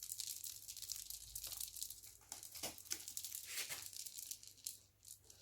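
Rustling and crinkling handling noise, with scattered short crackles, dying down near the end.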